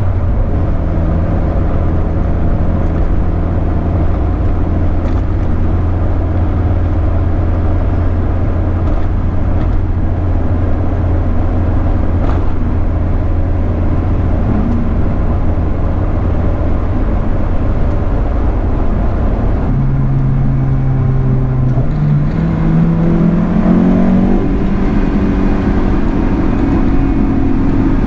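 2004 Honda S2000's four-cylinder engine running at a steady cruise. About two-thirds of the way through, the note jumps up and then climbs as the car accelerates.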